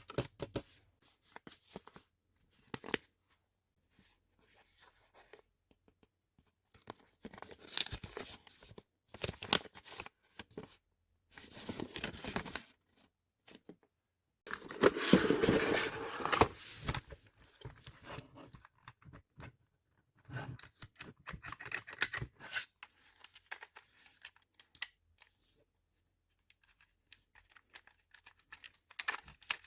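Irregular bursts of tearing and crinkling from packaging being handled and torn open by hand, with quiet gaps between and a few short clicks.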